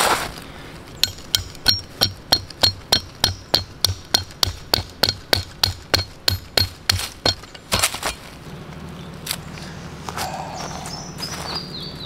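Billhook blade striking a metal wire peg, driving it into the ground: a quick run of about twenty sharp taps, roughly three a second, each with a short high metallic ring, stopping about seven and a half seconds in.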